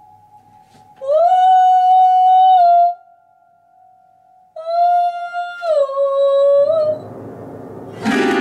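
A woman's voice hums two long, steady notes over the open strings of a grand piano. The second note slides down near its end, and a faint tone at the same pitch keeps ringing in the strings after each one. Near the end a hand sweeps across the piano strings in a loud strum that rings on.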